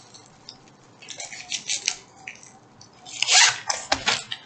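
Crinkling and rustling of plastic packaging as a wrapped, rolled diamond-painting canvas is handled and turned over, a series of short crackles with a louder burst about three seconds in.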